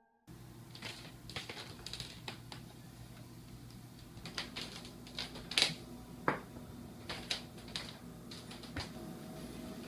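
Irregular light clicks and taps, like keys being struck, over a steady low room hum.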